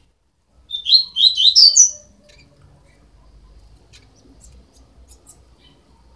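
A young double-collared seedeater (coleiro) chick gives a rapid run of about six high chirps lasting about a second, the last note rising. A few faint ticks follow.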